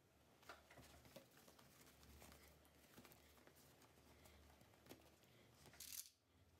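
Near silence with faint rustles and small ticks from hands pinning foam-backed fabric layers together, and a slightly louder rustle near the end.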